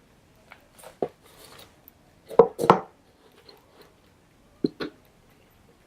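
A few light knocks and taps of small objects being handled and set down in a small enclosure, a pair of louder knocks about halfway and another pair near the end, with a brief rustle of loose substrate.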